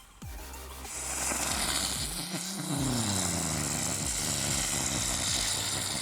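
Small consumer firework burning with a loud, steady rushing hiss of sparks that starts about a second in.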